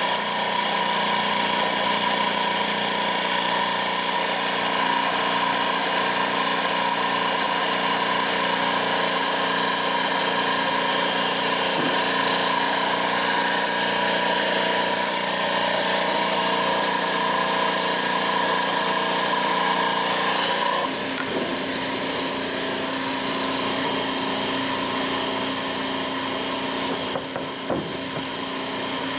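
A steady mechanical hum made of many fixed tones, like a motor running, that shifts in tone about two-thirds of the way through.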